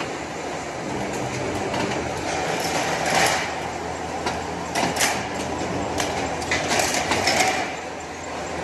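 Rollforming line running with a steady mechanical din while it forms steel CD drywall profiles, with several sharp metallic clanks as the profiles come off onto the exit table.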